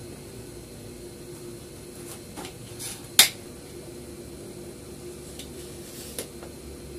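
A few light clicks and taps of a small knife and tomato pieces against china plates on a metal tray, the sharpest about three seconds in, over a steady low room hum.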